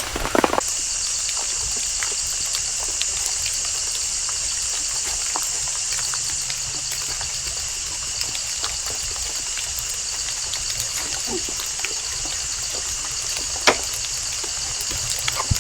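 Rain dripping onto fallen leaves on a woodland floor: scattered drops ticking over a steady high hiss, with one sharper drop-like click near the end.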